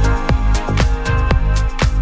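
Background electronic dance music with a steady kick drum beat, about two beats a second, over sustained synth tones.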